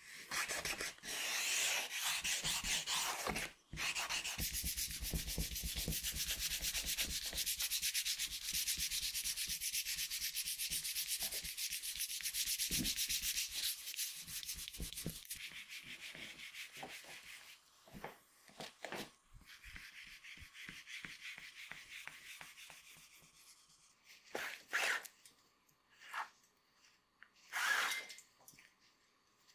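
Fast back-and-forth hand rubbing along a leather welt strip: a dense, scratchy, even stroking for about fifteen seconds, then softer strokes. A few short separate sounds follow near the end.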